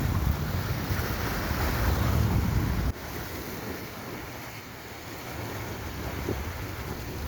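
Wind buffeting the microphone over a steady wash of sea waves; the loud wind rumble drops off abruptly about three seconds in, leaving quieter surf and wind hiss.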